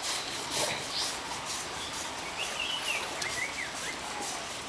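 A bird calling in a few short warbling chirps about halfway through, over a steady outdoor background hiss.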